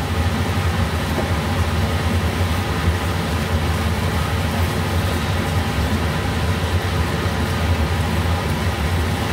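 Ground pork sautéing in a nonstick skillet, a steady sizzle as it is stirred with a wooden spatula, over a constant low hum.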